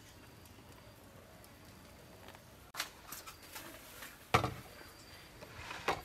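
A few knocks and clatters of bowls and kitchenware being handled on a table, the loudest about four seconds in, after a quiet start.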